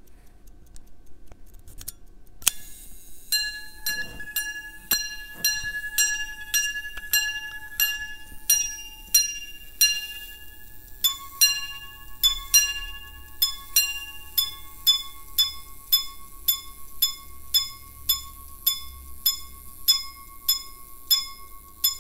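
Gold minute repeater pocket watch chiming the time on its gongs after a click of the repeater slide. It gives a long run of clear, ringing strikes, about two a second, lower-pitched strikes first and a higher-pitched series from about halfway.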